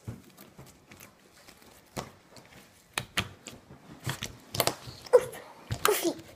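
Slime being squished and pressed by hand, with scattered sticky clicks and a few short squelches near the end.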